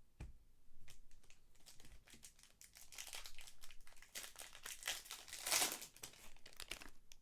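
Foil trading-card pack wrappers crinkling and being torn open by hand, with cards rustling. The rustling is busiest in the middle and loudest about five and a half seconds in.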